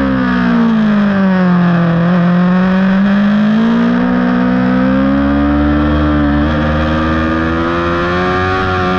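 Yamaha R6 sportbike's 599 cc inline-four heard onboard at speed: the engine note drops over the first two seconds as the rider rolls off the throttle, then climbs steadily as he drives out through a long corner and holds high to the end.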